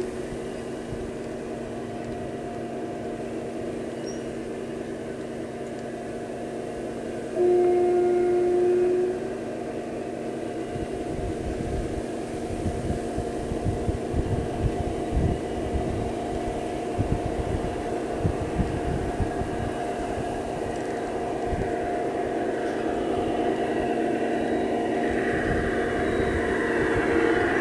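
Sound decoder (Zimo MX699) of a garden-railway model DR class 112 diesel locomotive playing a steady diesel engine drone through its small loudspeaker, with a two-tone horn blast of about two seconds roughly seven seconds in. From about twelve seconds in, low irregular rattling from the running train joins it and grows louder as the train approaches.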